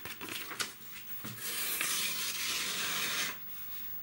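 Forged Kh12MF steel knife blade drawn slowly through a sheet of paper: a steady papery hiss for about two seconds that stops sharply, after about a second of paper rustling and crinkling as the sheet is handled. It is a sharpness check of the edge, which slices the paper cleanly into strips.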